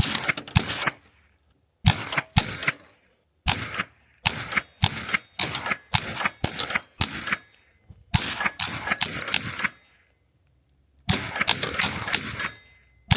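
Suppressed Ruger 10/22 .22 LR semi-automatic rifle firing a rapid string of shots, about two a second, with a pause about ten seconds in. Steel targets ring with high tones after the hits.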